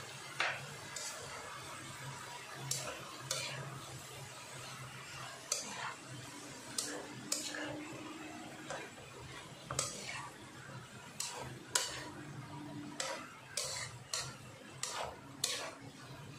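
Black plastic slotted spatula stirring chopped vegetables in tomato sauce around a nonstick frying pan, with irregular knocks and scrapes on the pan about once a second. A low steady hum runs underneath.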